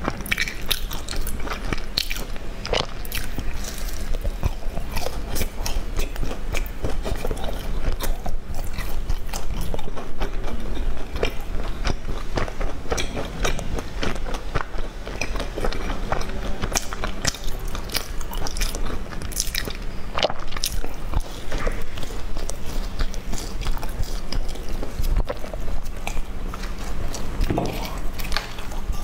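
Close-miked biting and chewing of sesame-coated brown snack sticks: a steady run of small crunchy clicks and mouth sounds.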